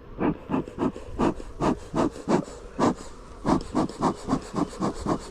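Fast, even back-and-forth scraping or rubbing strokes, about four or five a second, with a short pause about three seconds in.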